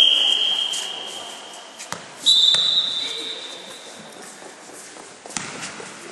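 Two long referee whistle blasts in a basketball hall. The first comes right at the start and fades over about two seconds. A second, slightly higher blast comes about two seconds in and lasts about a second and a half. A few sharp knocks from the ball bouncing on the court are heard between them and near the end.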